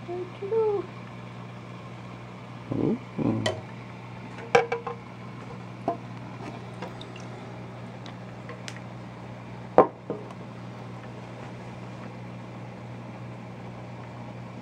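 Steady low hum of reef aquarium equipment, with a few short bursts of handling noise and several sharp clicks and knocks, the loudest about ten seconds in.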